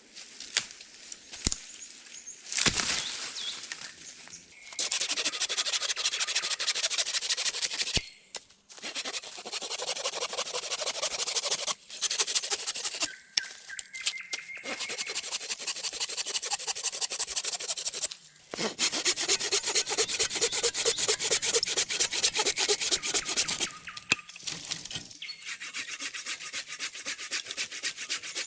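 Wood being worked by hand, a fast, even rasping scrape repeated in long runs with brief pauses between them. A few sharp knocks come before it starts.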